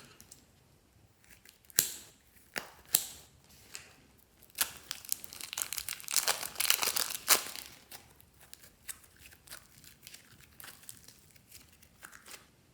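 Slime being worked by hand, crackling and popping: a couple of sharp snaps in the first few seconds, a dense stretch of crackling in the middle, then scattered small pops.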